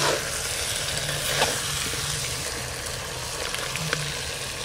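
Spiced country chicken and potatoes sizzling in mustard oil in a clay pot, stirred with a metal ladle that scrapes lightly a couple of times. The masala is cooked down dry (the kosha stage), ready for water.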